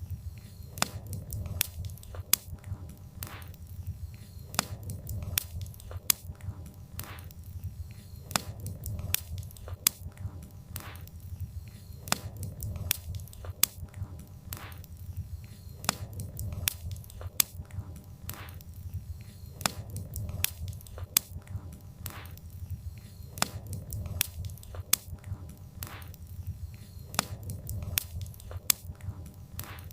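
Burning firewood crackling, with irregular sharp pops several times a second over a low, steady rumble of the flames.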